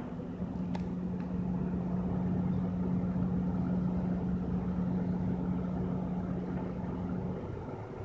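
Steady low rumble of a vehicle engine idling, heard from inside a car, with a held low hum that stops near the end.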